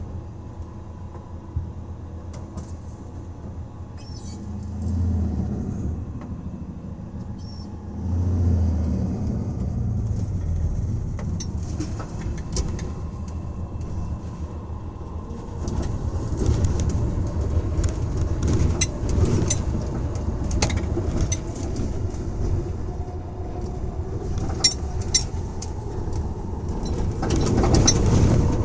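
1984 Dodge van's engine running on the road, getting louder about eight seconds in and again about halfway through as it is pushed harder, with rattles and clicks over the engine rumble. The owner is checking this for a misfire under wide-open throttle.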